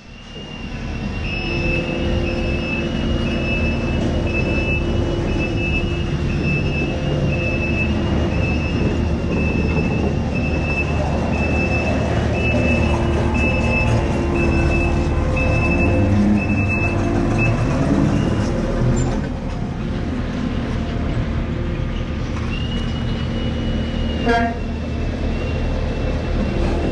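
Compact track loader's diesel engine running steadily while an electronic warning beeper sounds in a regular string of high beeps, which stop about two-thirds of the way through. A single knock comes near the end, followed by a steadier high tone.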